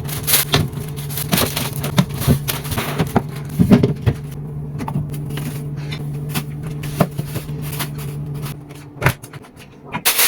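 Irregular knocks, clicks and scrapes of things being handled and wiped while cleaning, over a steady low hum. The knocks thin out near the end.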